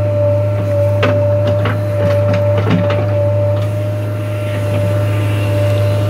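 JCB 3DX backhoe loader's diesel engine running steadily under load, heard from inside the cab, with a steady high whine over it. Several sharp knocks and clanks about one to three seconds in as the backhoe arm works.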